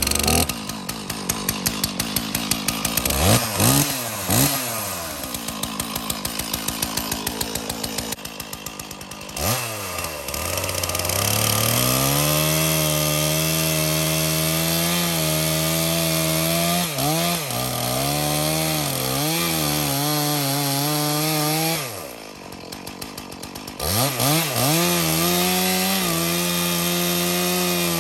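Stihl chainsaw starting up, pulsing at a low speed and being revved a couple of times, then run at high revs cutting into a cedar log, its pitch dipping briefly under load. About 22 s in it drops to a low speed for a couple of seconds, then goes back up to full speed.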